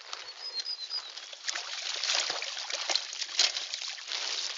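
Puddle water splashing and sloshing as a boy moves about in it: irregular small splashes that grow busier after about a second and a half.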